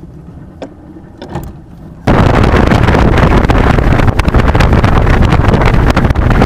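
A couple of seconds of low, quiet rumble with a few faint clicks, then an abrupt switch about two seconds in to a loud, steady rush of wind buffeting the microphone over a motorboat running at speed.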